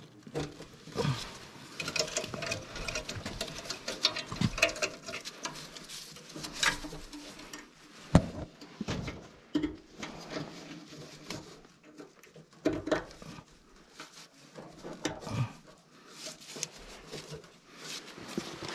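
Irregular light clicks, taps and rustling of a gloved hand working among the wires and sheet metal inside a gas furnace cabinet, plugging the wire connectors back onto a newly replaced burner temperature switch, with a few sharper knocks against the metal.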